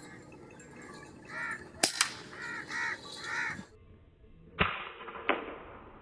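Crows cawing a few times, with two sharp clicks about two seconds in. Then an air rifle fires: a sharp crack a little past halfway, followed by a second, fainter crack under a second later.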